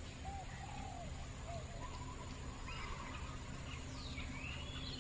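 Faint scattered bird calls, a few short notes and downward-sliding whistles about four seconds in, over a steady outdoor background hiss.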